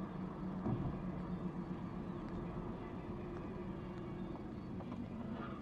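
Steady road and engine hum inside a moving car, picked up by a dash camera's microphone.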